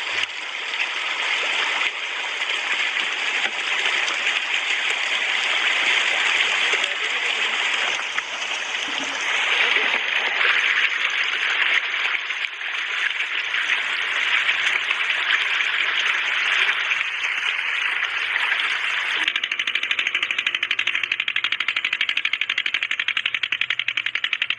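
Hybrid mangur catfish crowding and thrashing in shallow water, a dense and constant splashing as they feed. About 19 seconds in, this gives way to a stationary engine driving a feed machine, running with a rapid steady beat.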